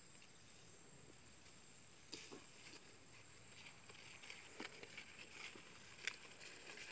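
Faint rustling and a few soft knocks as a watermelon is lifted and set into a plastic basket, with a sharper click about six seconds in. A steady high-pitched insect drone from the field runs underneath.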